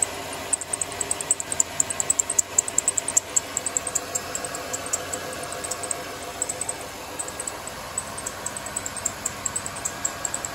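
A 1995 Chevy Caprice wagon's V8 idling while its accessory drive belt chirps over and over, several sharp high chirps a second. Chirping like this is the sign that either the serpentine belt or the tensioner idler pulley has gone bad.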